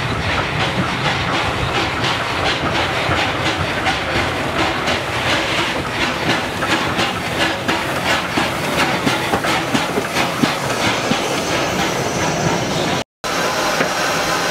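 Steam tank locomotive 656 working slowly past, with rhythmic chuffing and knocking and hissing steam venting at the cylinders. About thirteen seconds in, the sound breaks off and gives way to a steady steam hiss in the locomotive's cab.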